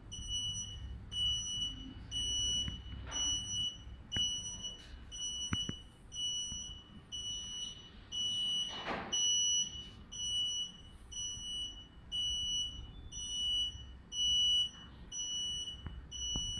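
Electronic alarm buzzer beeping at a high pitch, about once a second in a steady repeating pattern, over a low hum. A brief hiss comes about nine seconds in.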